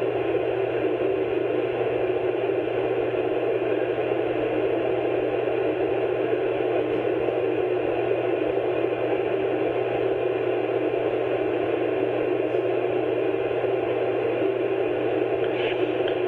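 Steady hiss with a low hum under it: the background noise of the narration's recording, unchanging and without any distinct events.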